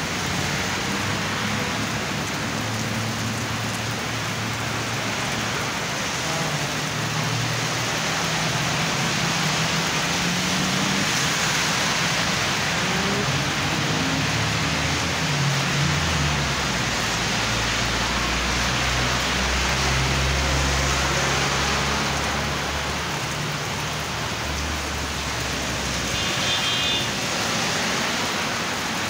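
Heavy rain hissing and splashing on wet pavement, with car engines running and passing under it. A brief high electronic beep sounds near the end.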